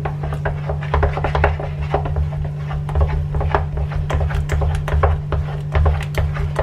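A spatula beats and scrapes a thick water chestnut flour batter in a stainless steel frying pan: rapid, irregular scraping strokes with dull thumps of the dough against the pan, over a steady low hum. The batter is being worked until smooth and elastic.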